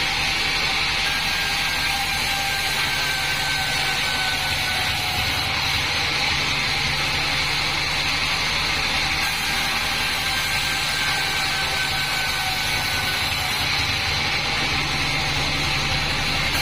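Band sawmill running with a steady, even motor hum and hiss.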